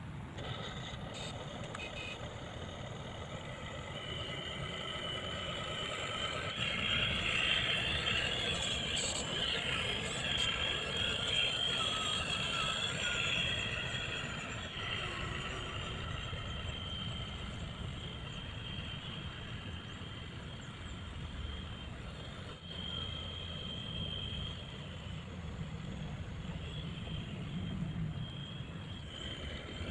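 Radio-controlled model construction vehicle running: electric motors and plastic gearing whine at a few high pitches over a low rumble, louder between about 6 and 14 seconds in.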